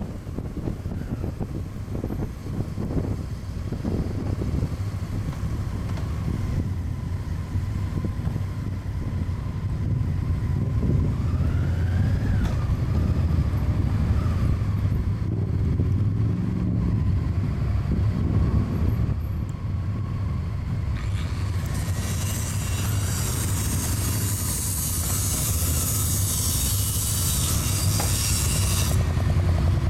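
Motorcycle engine running at low road speed, a steady low hum heard from on board the bike, with other motorcycles riding close by. For several seconds in the second half a loud hiss joins it.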